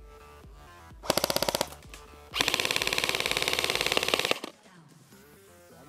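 G&P M7A1 airsoft electric rifle firing two full-auto bursts: a short one about a second in, then a longer one of about two seconds. Electronic music with a steady beat plays underneath.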